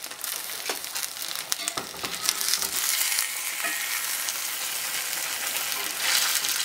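A chicken egg sizzling as it fries in a cast iron skillet, while a metal spatula scrapes and clicks against the pan as it lifts and turns the egg. The sizzle grows louder about two seconds in.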